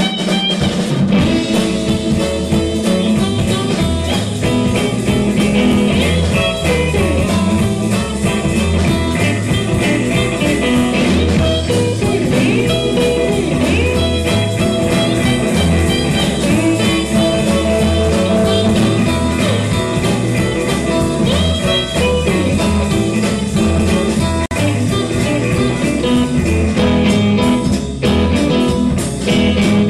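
Live blues band playing an instrumental groove: electric guitars over drums, with a steady beat.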